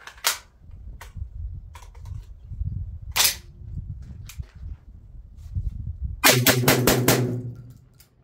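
SDS Imports Tokarev TT12 semi-automatic 12-gauge shotgun firing Winchester 1200 fps shells. There are single shots a few seconds apart, then a rapid string of shots about six seconds in.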